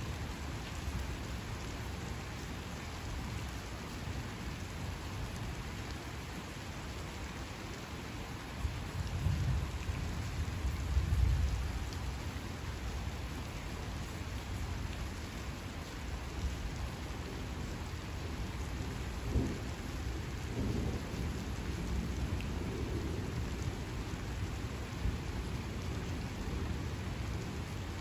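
Steady rain falling, with rolling thunder: a low rumble builds about a third of the way in and peaks shortly after, and another, shorter rumble with a sharper crack-like peak comes about two-thirds of the way through.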